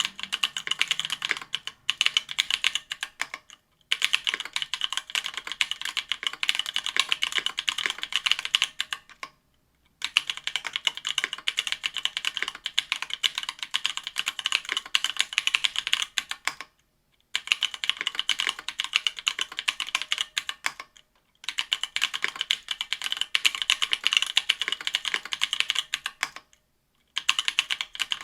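Duck Octagon V3 custom mechanical keyboard with stock Ethereal Panda tactile 68g switches, typed on quickly in runs of rapid key clicks broken by several short pauses.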